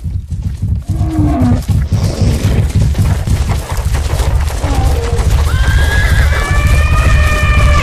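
Herd of large animals stampeding: a dense, deep rumble of pounding feet and hooves. Short falling animal calls break in early on, and from about five and a half seconds in a long, high animal call rises over the herd.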